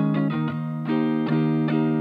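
Electric guitar played through a Little Rebel 2-watt kit amp into a Jensen CR8 speaker. A low note rings on underneath while several higher notes are picked over it, one after another.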